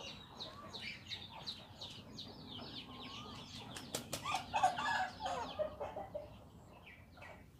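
Faint chickens clucking among many short bird chirps, the clucking heaviest about four to five seconds in, with a single sharp click about four seconds in.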